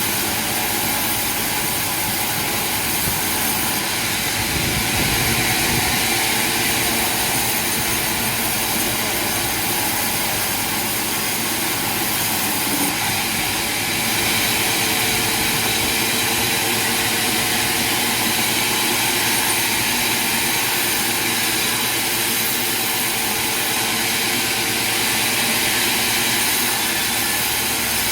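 Sawmill machinery running steadily: a loud, even roar with a constant high whine over it.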